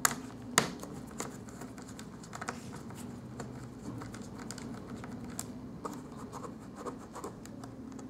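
Small Phillips screwdriver turning tiny screws out of a plastic laptop bottom panel: scratchy clicking and ticking throughout, with two sharp clicks in the first second.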